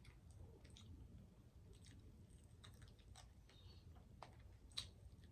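Faint chewing with soft, scattered mouth clicks as a person eats, with one slightly louder click near the end.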